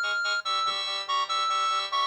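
Samsung SGH-T100 polyphonic ringtone playing: a synthesized melody over chords, its notes changing several times a second, with a brief break about half a second in.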